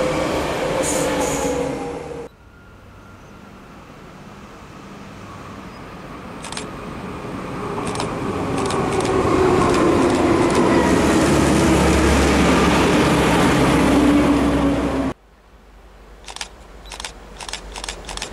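A regional electric train passes at close range for about two seconds, then the sound cuts off. A vintage red railcar then approaches, and its rumble with a droning note grows steadily louder until it is cut off suddenly. Near the end a quieter approaching train brings a run of sharp wheel clicks over the rails.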